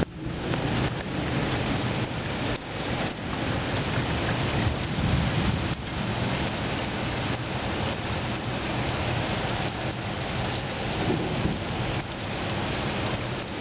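Heavy rain pouring down steadily, with thunder rumbling low underneath.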